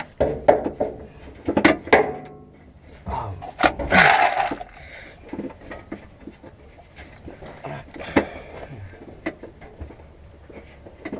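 Irregular clicks, knocks and clanks of hand tools and metal parts being handled while a bolt is worked back into a car's gas-tank mounting, with a brief noisy rush about four seconds in.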